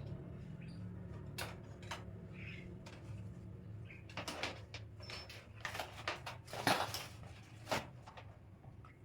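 Hard objects being handled and knocked together, scattered clicks and knocks that come in quick clusters from about four to eight seconds in, over a steady low hum.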